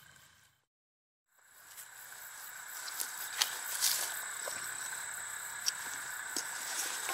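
Insects trilling steadily in grassland, with a few light clicks and rustles from a backpack's pocket and buckle being handled. The sound cuts out for about a second near the start and fades back in.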